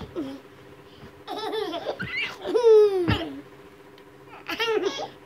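Toddler laughing and squealing in three short high-pitched bursts, the loudest about three seconds in, falling in pitch.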